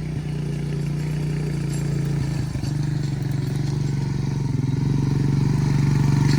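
An engine running steadily with an even, rapid firing pulse, growing gradually louder.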